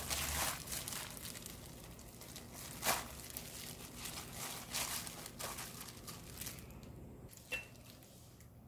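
Disposable plastic glove crinkling and rustling in irregular strokes as a hand tosses julienned radish salad (musaengchae) in a glass bowl; the strokes die down after about six and a half seconds. Near the end, a single sharp clink of a spoon against the glass bowl.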